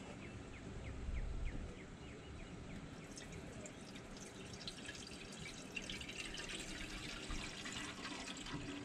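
Muriatic acid poured from a plastic gallon jug into the rusty fuel tank of an old Homelite water pump, a faint thin trickle and dripping into the tank.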